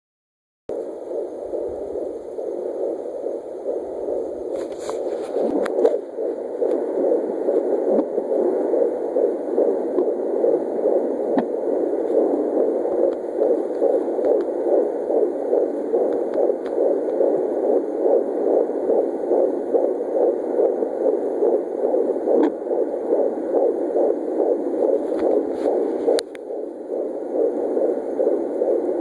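Fetal heartbeat at 16 weeks heard through a handheld Sonoline fetal Doppler's speaker: a fast, even pulsing over a steady hiss. It starts just under a second in, with a few sharp knocks along the way.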